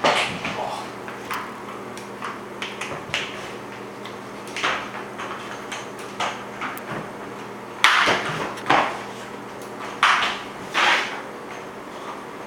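Swiffer mop head sliding and scraping across a hardwood floor in a series of short swishes while a cat grabs at it, the loudest strokes coming in the second half. A steady low hum runs underneath.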